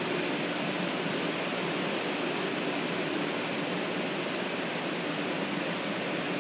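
Steady, even rushing hum of a standing 500 series Shinkansen's equipment cooling fans and air conditioning, heard from the platform right beside the cars.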